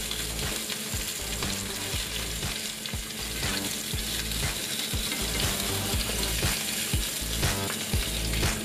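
Salmon fillet searing skin-side down in hot olive oil in a frying pan: a steady sizzle as the skin crisps, with a few light knocks.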